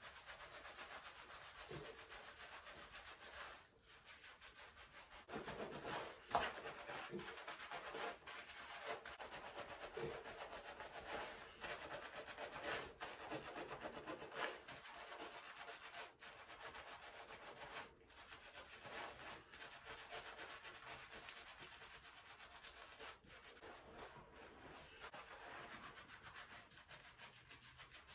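Hands scrubbing shampoo lather through hair and scalp: a faint, continuous wet rubbing.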